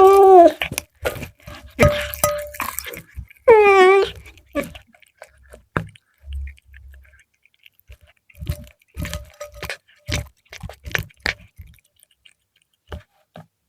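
A cat meows at the start and again about four seconds in, then chews fried milkfish in a scattered run of sharp crunches and clicks.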